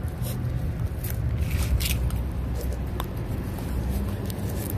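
Puppies chewing raw fish and quail eggs, with scattered sharp crunches and clicks over a steady low rumble.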